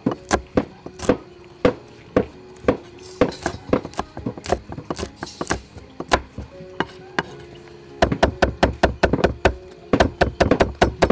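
Kitchen knife chopping red chillies on a wooden chopping board: sharp knocks of the blade on the wood, spaced out at first, then a fast run of quick chops from about eight seconds in.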